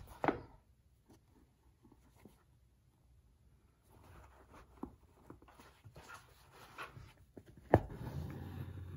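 Embroidery needle and floss being drawn through cotton cap fabric stretched in a wooden hoop while French knots are stitched: soft scratching and rustling, with a sharp click near the end.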